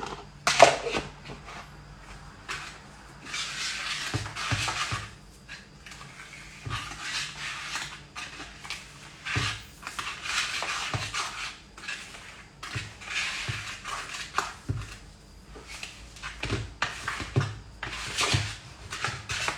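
A utensil stirring thick brownie batter in a mixing bowl as the flour is worked in: repeated scraping strokes with soft knocks against the bowl.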